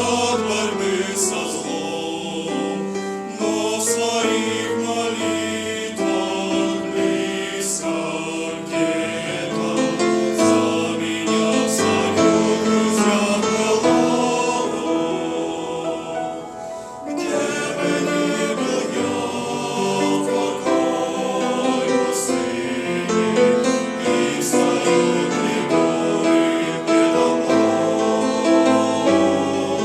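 Music: voices singing together in a choir over instrumental accompaniment, with a brief drop in the music about halfway through.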